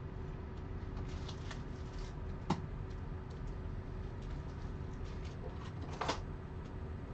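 Trading cards and card holders being handled on a table: light rustles and small clicks, with one sharp click about two and a half seconds in and a short clatter near six seconds, over a steady low hum.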